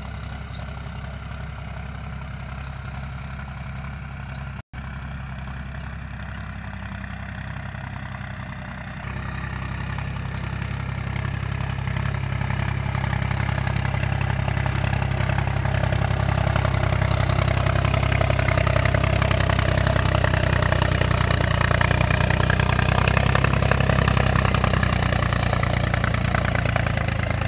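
Mahindra 275 DI tractor's three-cylinder diesel engine running steadily while pulling a cultivator. It grows louder from about nine seconds in as the tractor comes closer. There is a brief dropout about five seconds in.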